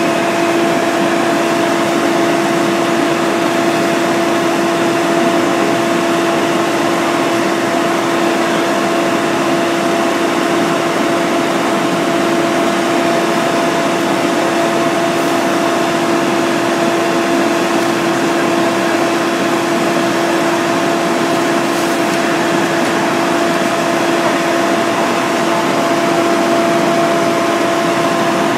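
Engine-driven fire equipment running at a steady speed: a loud, even drone with a constant hum in it.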